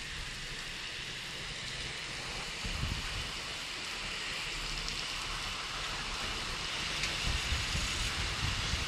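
Steady rain falling on a street, a continuous hiss that grows a little louder toward the end. Low rumbles from wind on the microphone and traffic on the wet road come and go underneath.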